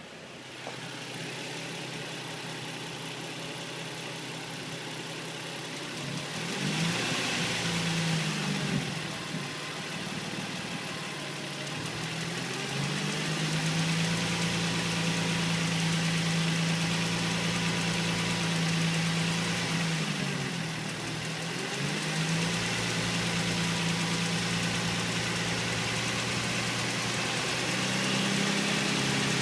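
2005 Nissan 350Z's 3.5-litre V6 idling steadily, its pitch wavering briefly about six seconds in and again about twenty seconds in. It carries a ticking that the owner places below the intake manifold and suspects comes from the injectors or hydraulic lifters.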